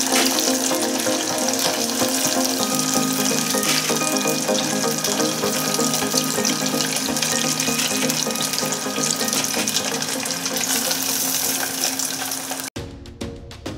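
Rice-flour-coated chicken thigh pieces deep-frying in a pot of oil: a dense, steady sizzle and crackle, with background music under it. Near the end the frying sound cuts off suddenly and only the music remains.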